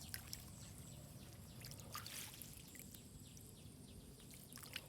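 Quiet water ambience: faint trickling and a few soft ticks and splashes over a low, steady rumble.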